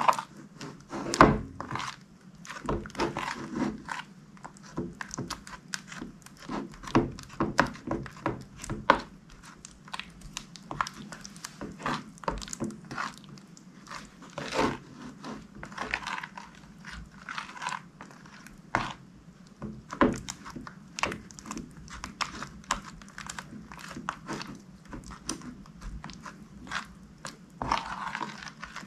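Slime being squished, stretched and folded by hand, making irregular rapid clicks and pops.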